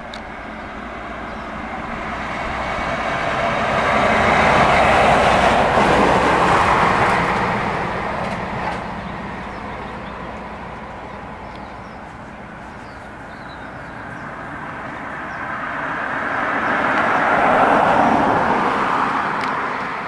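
Two passing vehicles, each a swell of rushing noise that rises and fades away. The first peaks about five seconds in, the second near the end.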